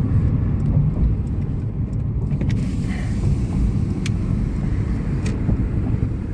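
A car's engine and tyre rumble heard from inside the moving car: a steady low drone with a few faint clicks.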